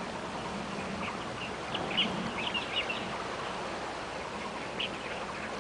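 Birds chirping: a quick run of short, high chirps about two seconds in and one more near the end, over a steady background hiss.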